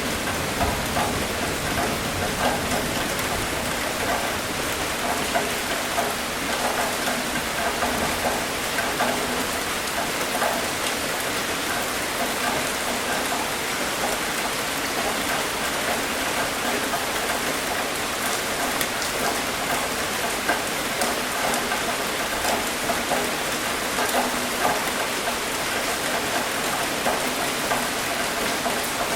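Steady rain falling and pattering on a surface, with many small individual drop ticks.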